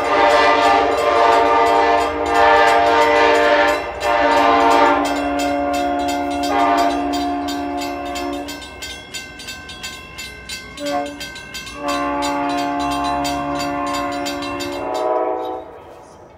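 Multi-chime locomotive horn on a Hartford Line train, blown as a hornshow for railfans: a string of long chord blasts whose notes change from blast to blast, a couple of short toots about 11 seconds in, then a last long blast that stops about 15 seconds in. It grows fainter as the train pulls away.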